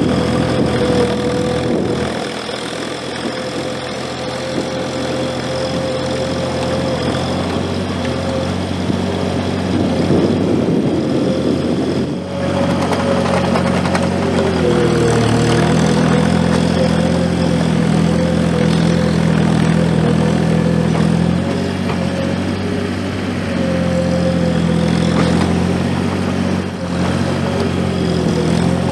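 Gehl 4835 SXT skid steer's diesel engine running as it pushes snow. The engine note shifts and dips briefly a few times as the load changes.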